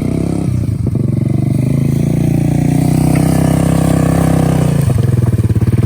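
ATV engine running hard under load, its revs climbing gradually, then changing abruptly near the end.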